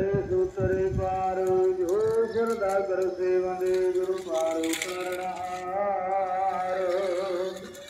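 A man singing slow, long-held, wavering notes over a low steady drone, in a chant-like style. A brief hiss rises under the singing about halfway through.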